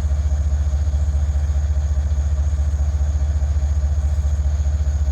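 Diesel freight locomotive idling at close range: a steady, deep throbbing engine note with a fast, even pulse.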